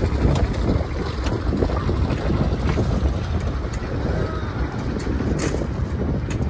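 Wind buffeting the microphone over the steady rumble of a slowly moving diesel locomotive running light, with a few short sharp clicks.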